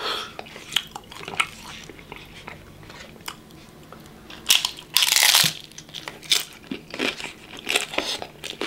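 Biting into a hard-shell taco: a loud crunch about halfway through, with smaller crackles and chewing sounds before and after, close to the microphone.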